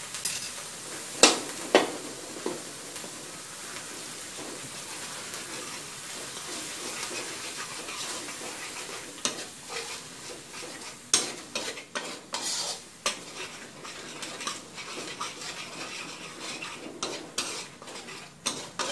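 Curry paste frying in coconut cream sizzles in a steel wok while a metal spatula stirs and scrapes it. Sharp clacks of the spatula against the pan come now and then, more often in the second half.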